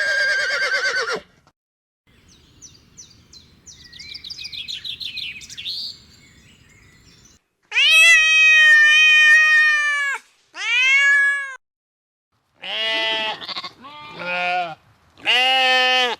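Animal calls one after another: a short call at the start, a stretch of faint chirping, then a long bleat and several shorter wavering bleats, typical of a goat.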